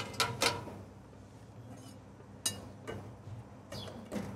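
Scattered clinks and scrapes of a metal skimmer against a plate and an aluminium cooking pot as raw meat is scooped into the pot, with one sharper knock about halfway through.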